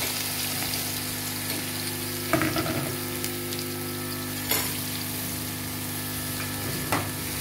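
Sliced bitter gourd frying in hot oil in a pan: a steady sizzle, with a few short knocks of a wooden spatula stirring it, about two and a half, four and a half and seven seconds in.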